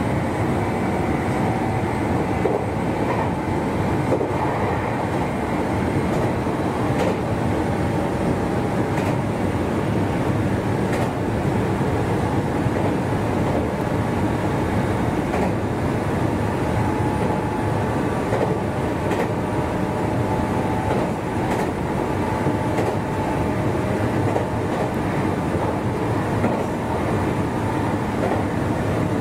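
Meitetsu 1200-series electric limited express running at speed on the line: a steady rumble of wheels on rail with faint steady tones above it. Occasional faint clicks come through at irregular intervals.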